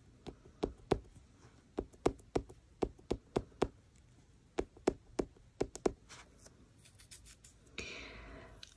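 Coloured pencil (Prismacolor Limepeel) tapped against paper to dot in lemon-rind texture: irregular sharp ticks, two or three a second, stopping about six seconds in. A brief soft rustle follows near the end.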